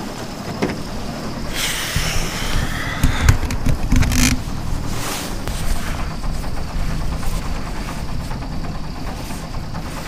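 Sailboat's engine running steadily at low speed under way, a low hum throughout, with a rustle and a few sharp knocks about two to four seconds in. The owners hear a funny vibration and banging with the propeller engaged, and they don't know what causes it.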